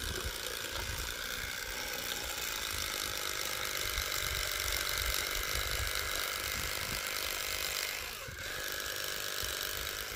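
Electric fillet knife running steadily as it cuts through a pike fillet, a continuous motor buzz whose pitch dips briefly about eight seconds in.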